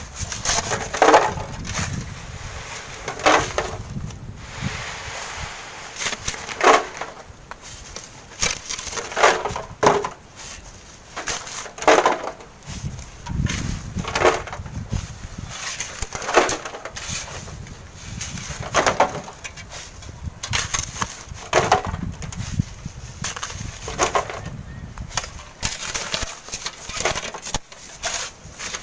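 Steel shovels and hoes digging and scraping into packed sand, an irregular stroke every one to three seconds.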